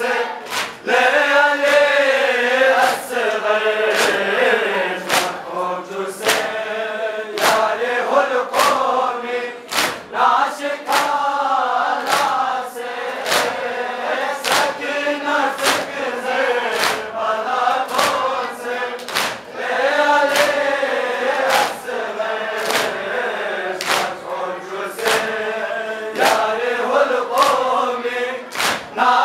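Men chanting a Shia noha, a Muharram mourning lament, together in unison. The chant keeps time with a steady beat of sharp slaps from palms striking chests in matam.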